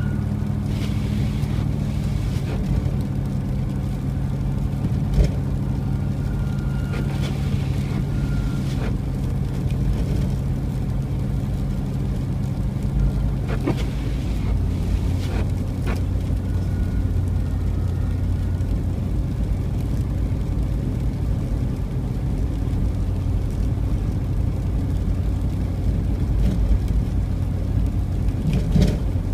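A car driving, its engine humming steadily over tyre and road noise, with a few scattered knocks. The engine note drops to a lower pitch about halfway through.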